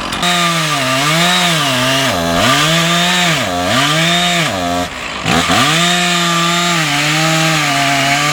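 Two-stroke chainsaw at full throttle cutting the felling notch into a large pine trunk, its engine pitch sagging and recovering every second or so as the chain bites into the wood, with the deepest bog-down about five seconds in.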